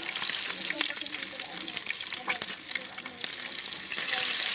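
Tilapia frying: a steady sizzle with scattered small crackles and pops, getting louder about four seconds in.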